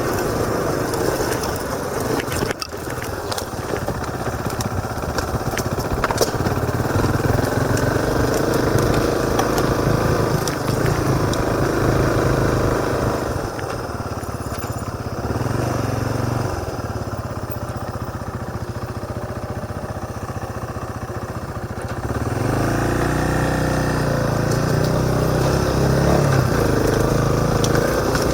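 Motorcycle engine heard through a helmet-mounted camera, its pitch rising and falling with the throttle while riding. It drops to a quieter, duller note for several seconds past the middle, then picks up again with a rising rev near the end.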